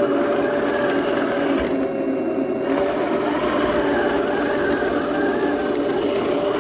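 Henglong 1/16 RC M1A2 Abrams tank driving: its electric drive motors and steel-gear gearboxes whine steadily. The higher part of the sound drops away briefly about two seconds in.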